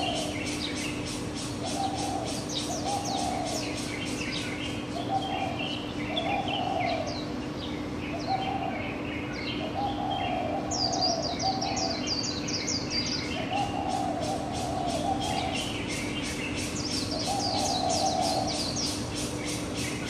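Morning bird chorus: a low cooing or hooting call repeated every second or two, often in pairs, over many higher chirping and trilling songbird calls. A steady low hum runs underneath.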